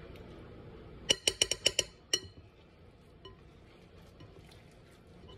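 A fork clinking against a glass mixing bowl, about seven quick ringing clinks over about a second, beginning about a second in, as the crab cake mixture is stirred.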